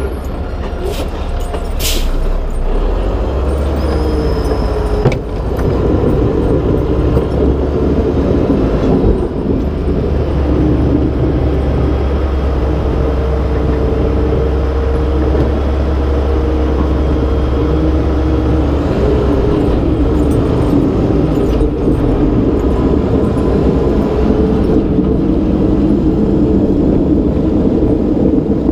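Diesel engine of a Mack Granite snowplow truck running steadily under load while plowing, heard from outside the cab with a heavy rumble of wind on the microphone.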